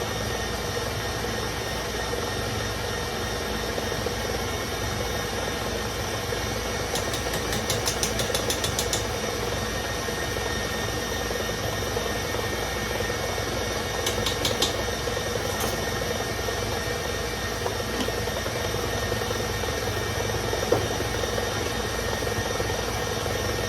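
Electric mixer running steadily, beating eggs and sugar for a sponge cake batter, with short runs of light clicking about seven and fourteen seconds in.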